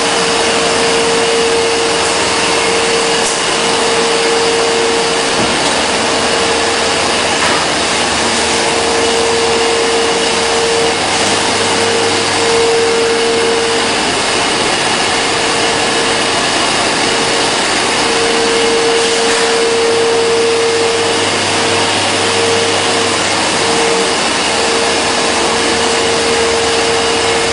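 Gas-fired stainless-steel steam cabinets running: a loud, steady rushing hiss with a constant mid-pitched hum through it.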